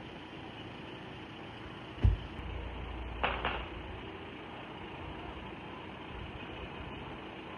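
Explosion during a missile barrage: a deep boom about two seconds in that rumbles on for over a second, then two sharp cracks in quick succession, over a steady hiss of background noise.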